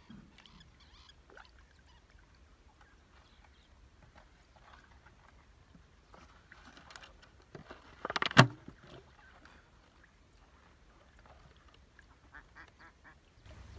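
Waterfowl calling faintly and intermittently. About eight seconds in there is a sudden loud splash in shallow water.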